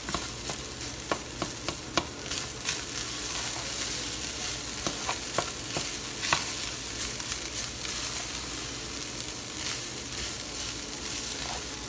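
Ground beef and rice sizzling in a metal skillet as a spatula stirs through them, with scattered light clicks and scrapes of the spatula against the pan.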